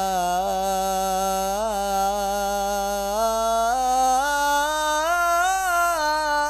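Islamic devotional chant sung in long held notes with small ornamental turns; the melody steps up in pitch about halfway through.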